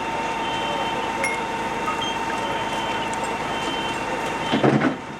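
Fire apparatus engine running steadily with a constant whine, and a short louder noise about four and a half seconds in.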